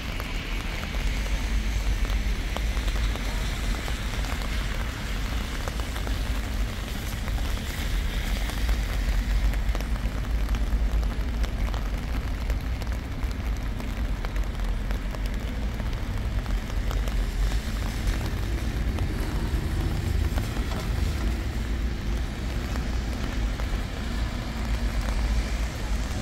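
Steady rain falling outdoors, heard as an even hiss, with a constant low rumble beneath it.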